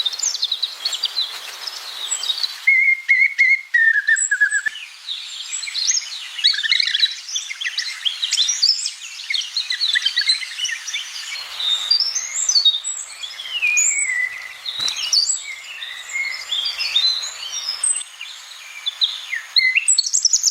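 Many songbirds chirping and singing at once: a dense chorus of short high chirps and whistled notes overlapping throughout, with a couple of longer held whistles about three seconds in.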